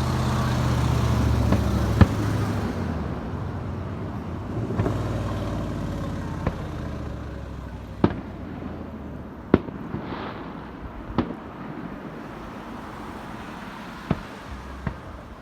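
Fireworks going off, with single sharp bangs every second or two. Under the first several seconds is a low engine hum that swells and then fades away.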